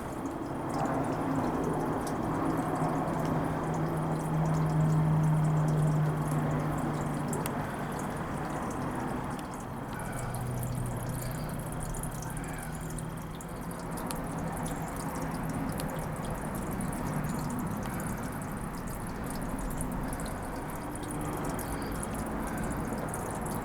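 Small waterfall trickling and dripping, with a bee buzzing close by, loudest about four to seven seconds in.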